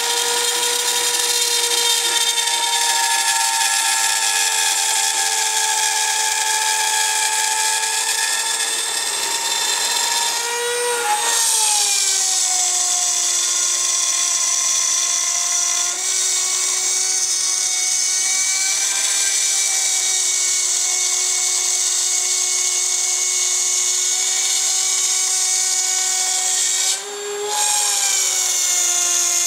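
Shapeoko 2 CNC router's rotary-tool spindle whining steadily at high speed as its fine bit cuts into acrylic sheet. The whine steps down a little in pitch about a third of the way through and breaks off briefly near the end.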